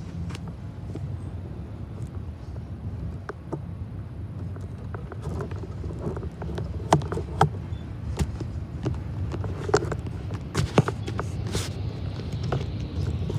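Double-stack container freight train rolling past: a steady low rumble of steel wheels on the rails with scattered sharp clicks and knocks.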